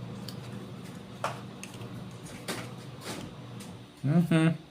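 A few light clicks and knocks from the parts of a Fluke 8024A multimeter being handled and fitted back together, over a low steady hum that stops shortly before the end.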